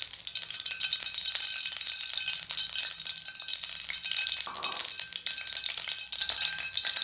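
Cooking oil heating in a karahi, crackling and spitting steadily with many fine pops.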